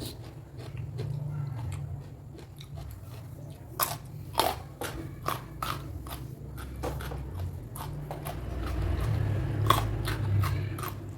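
Close-miked biting and chewing of crunchy raw food in irregular crunches, with a few louder bites about four seconds in and again near the end, over a steady low hum.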